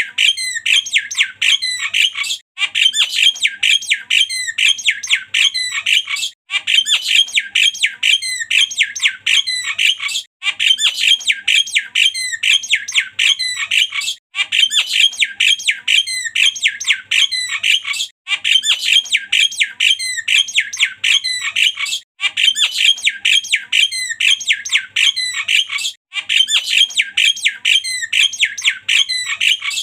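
Javan myna singing: a dense run of rapid chattering whistles and harsh squawks, the same phrase repeating about every four seconds with a brief break between.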